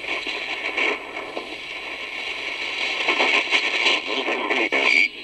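Lowe HF-225 Europa shortwave receiver hissing with static as it is tuned between stations on the 31 m band. The noise sits in a narrow mid band and grows louder in the second half, with a brief dropout near the end.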